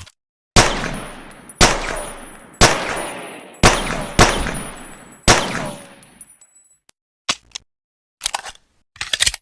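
Small pocket pistol fired six times at roughly one-second intervals, each shot with a decaying echo, followed by a few light metallic clicks near the end.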